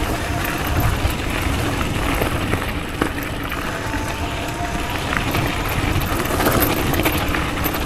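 Wind buffeting the rider's camera microphone and tyres rolling over a gravel track as a home-built 72 V, 3000 W electric downhill bike rides along. A faint whine from the bike's electric motor shows through in the middle.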